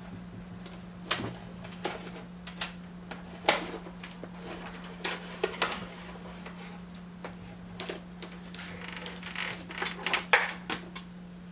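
Scattered clicks, taps and light clatter of cables, plugs and small parts being handled on an electronics workbench, the sharpest clicks near the end, over a steady low electrical hum.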